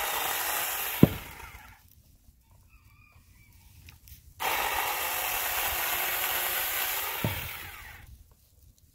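Battery-powered Saker 4-inch mini chainsaw running in two short bursts, cutting through small branches, with a quiet pause between them. Each burst starts abruptly, carries one sharp knock partway through, and tails off as the saw winds down.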